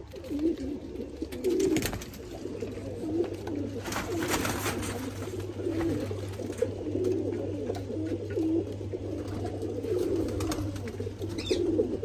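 Domestic pigeons cooing over and over in low warbling calls above a steady low hum. A few brief scuffling noises come through, the largest about four seconds in, as a bird is handled in its cage.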